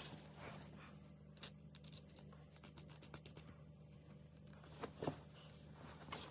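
Faint scattered clicks and light taps, from small hard objects being handled, over a steady low hum. The strongest clicks come right at the start and around five and six seconds in.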